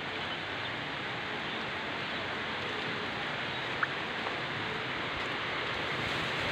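Steady hiss of rain falling on wet concrete, with one brief sharp tick about four seconds in.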